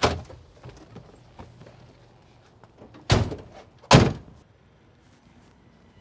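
Old Buick's car doors: a sharp clunk at the start, then two doors slammed shut a little under a second apart, about three seconds in.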